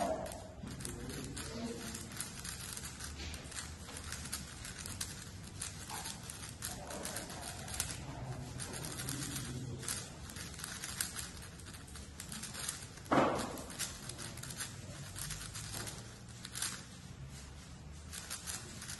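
A 6x6 speedcube turned fast during a solve: its plastic layers click and rattle in quick, uneven runs. About two-thirds of the way through there is one brief louder sound.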